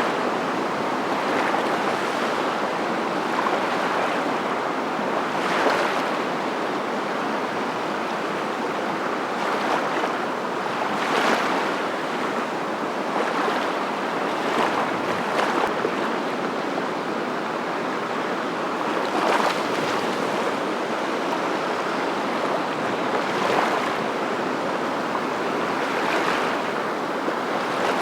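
Waves washing in: a steady rushing noise with louder surges every few seconds.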